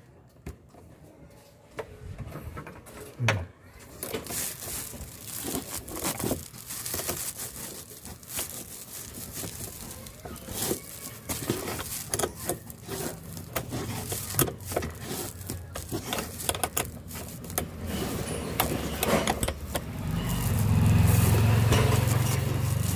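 Irregular clicks, rattles and scrapes of parts being handled and fitted back in place by hand, with a louder low rumble near the end.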